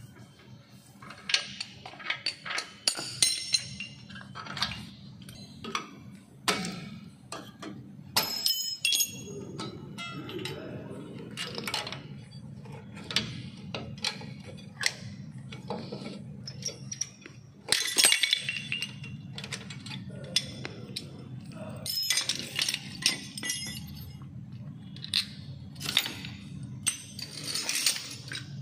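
Metal parts and hand tools clinking and clattering as a Honda Amaze rear drum brake is taken apart, with the hub pulled off and the brake shoes and springs removed. Many separate sharp clinks and knocks come at irregular intervals over a steady low hum.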